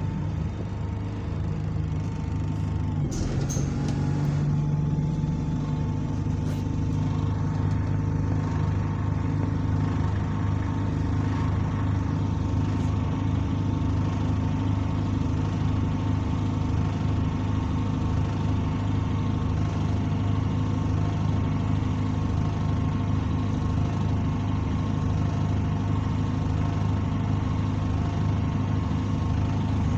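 Bus engine heard from inside the passenger saloon, running steadily under way. Its pitch shifts once about three seconds in, then holds even. The engine has been modified and, to the rider, sounds like an older Euro 3 engine.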